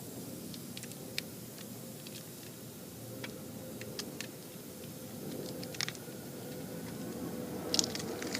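Scattered small clicks and taps from handling a tire plug repair kit: a sticky plug strip and the insertion needle tool, a few of them sharper near the end. Underneath runs a steady hum with a faint constant tone.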